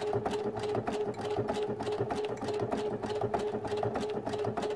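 Electric sewing machine running at a steady speed while sewing a satin (close zigzag) stitch: an even, rapid ticking of the needle over a steady motor hum.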